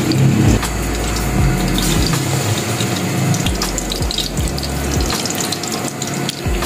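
Hot oil sizzling as masala-stuffed small eggplants are laid one by one into a metal kadhai to shallow-fry, with a few soft knocks as they go in.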